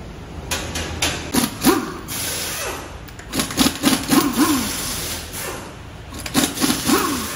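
Pneumatic impact wrench running on a car wheel's lug nuts in three spells of short rattling bursts. Its motor pitch rises and falls as it spins up and hammers.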